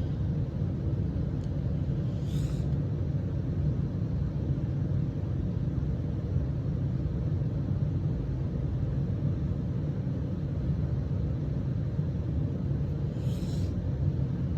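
A steady low rumble of background noise, with two short faint breaths, about two seconds in and near the end.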